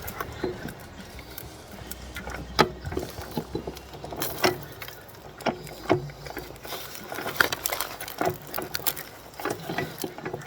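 Irregular metallic clicks, clinks and knocks of hand tools and steering parts being handled and fitted on a compact tractor.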